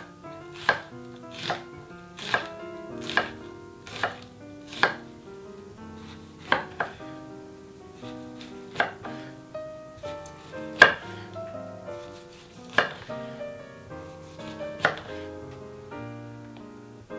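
Kitchen knife slicing through an onion and then a lemon, each stroke knocking on a wooden cutting board. The knocks come about every 0.8 s at first, then more sparsely, the loudest about halfway through. Soft background music plays underneath.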